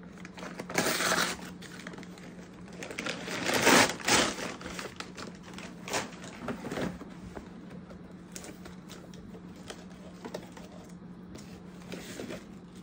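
Paper and cardboard packaging being handled: a kraft-paper mailer bag crinkling and tearing as it is opened, loudest about four seconds in, then a cardboard shoebox being handled and its lid opened, with scattered taps and rustles, over a faint steady hum.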